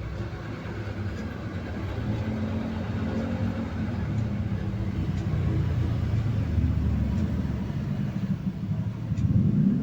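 Low, steady motor rumble with a shifting hum, growing a little louder near the end.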